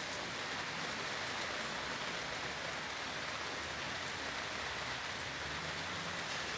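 Steady rain falling, an even hiss with a few faint drop ticks now and then.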